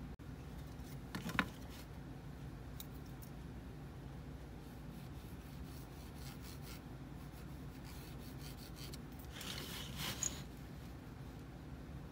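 Pencil scratching lines onto a plywood board along a metal speed square, with a cluster of scratchy strokes about ten seconds in. A single sharp knock about a second in, with a few faint taps and ticks in between.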